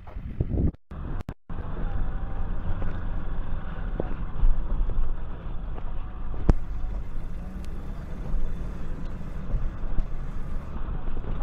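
A tow truck's engine running steadily as it drives across loose dirt.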